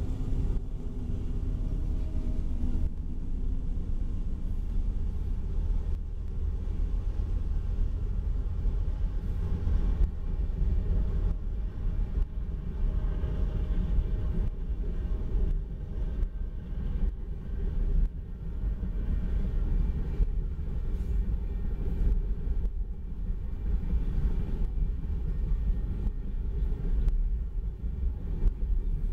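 Freight train passing close by. For the first couple of seconds the trailing GE AC44CW diesel locomotive's engine drones. After that, loaded lumber flatcars roll past with a steady low rumble of steel wheels on rail and occasional clicks.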